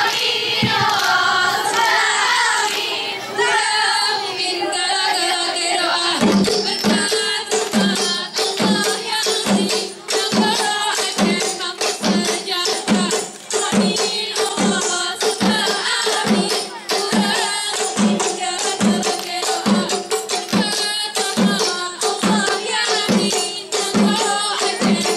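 Group dance music: a group of voices chanting a song in unison, joined about six seconds in by a steady percussion beat, a little under two strokes a second, under the chant.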